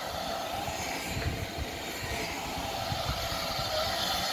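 Steam locomotive 2999 Lady of Legend, a Great Western 'Saint' class 4-6-0, close by with steam up: a steady hiss over an uneven low rumble, with no distinct exhaust beats.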